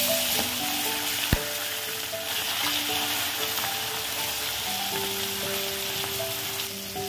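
Khoyra fish shallow-frying in hot mustard oil in a kadai, sizzling steadily over a low-to-medium gas flame. A single sharp click comes about a second in.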